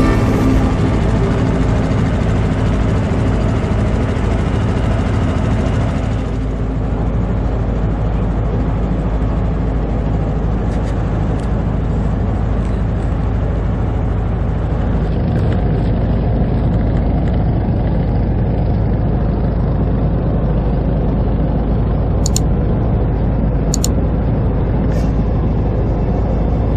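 Small boat's motor running steadily while under way, with water rushing along the hull.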